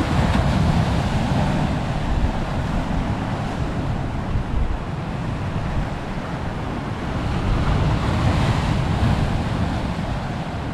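Sea surf breaking and washing over shoreline rocks, surging loudest near the start and again about eight seconds in, with wind buffeting the microphone.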